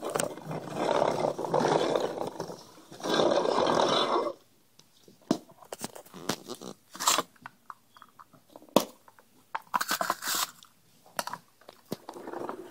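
A rough growling noise for about the first four seconds, then scattered clicks and knocks of a plastic toy garbage truck's loader arms and a cardboard bin being handled on a wooden floor.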